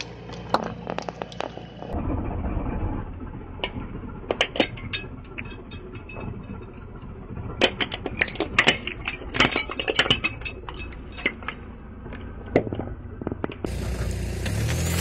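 Blue disposable plastic razors cracking and snapping under a slowly rolling car tyre on gravelly asphalt: a scattered run of sharp cracks over the car's low engine rumble. Near the end the sound cuts to a louder, steady engine rumble.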